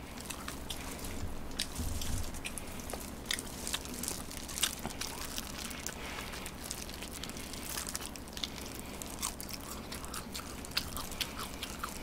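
Close-miked chewing and biting of fried chicken, with irregular small crisp clicks and crunches from the mouth.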